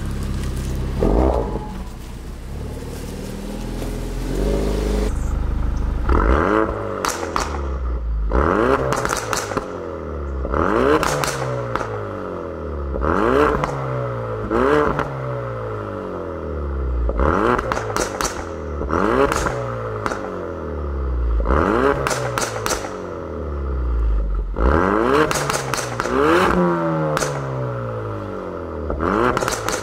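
2017 Ford Focus RS's 2.3-litre turbocharged four-cylinder through a Mountune exhaust, idling at first, then revved again and again about every two seconds from about six seconds in. Each rev falls back with pops and crackles from the exhaust.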